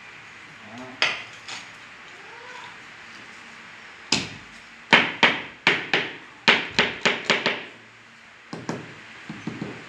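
Rubber mallet striking a granite countertop slab to bed it into the mortar beneath: about ten sharp blows, most in a quick run, then a few lighter taps near the end.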